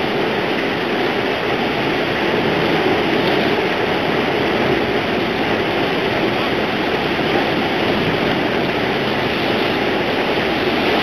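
Steady loud rushing of rough, breaking sea churning around a ship's hull.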